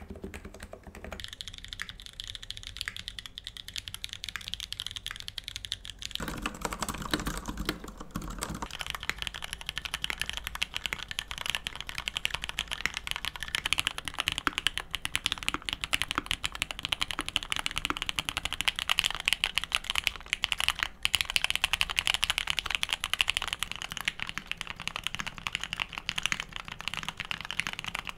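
Fast, continuous typing on a succession of keyboards with lubed switches, the sound of the keystrokes changing abruptly every few seconds as one board gives way to the next. The boards include an NIZ EC 50g electrocapacitive board and boards with Cherry MX Black and vintage Cherry Black linear switches.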